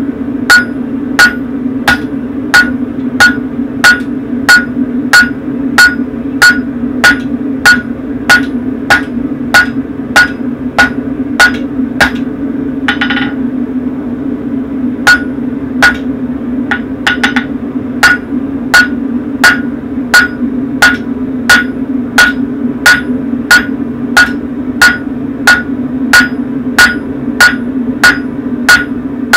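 Blacksmith's hammer striking red-hot horseshoe steel on a Hay Budden anvil in a steady rhythm, a bit under two blows a second, each blow ringing, while the bar is drawn out and straightened. The hammering pauses for a couple of seconds midway, over a steady hum throughout.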